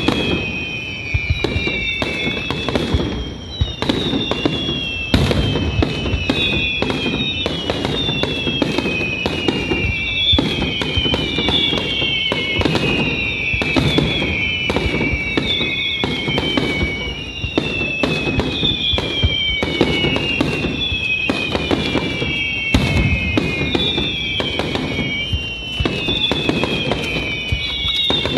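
Fireworks display in full flow: aerial shells bursting one after another with booms, sharp bangs and crackling. Over them runs an unbroken series of overlapping high whistles, each falling in pitch over a second or two, from whistling fireworks.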